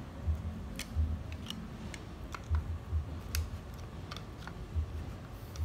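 Irregular small metallic clicks and ticks of a hand screwdriver turning screws out of the DTI205 core drill's gear housing, with dull low bumps as the machine shifts on the steel bench.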